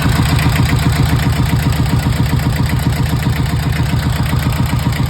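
A sailing boat's inboard diesel engine idling steadily with an even, rhythmic beat. It is running normally after the fuel tank was refitted following a diesel bug contamination.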